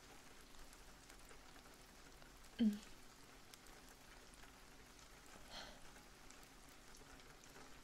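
Faint steady rain-like patter in the background. A woman's voice makes a short falling hum about two and a half seconds in, and there is a faint breath-like puff a few seconds later.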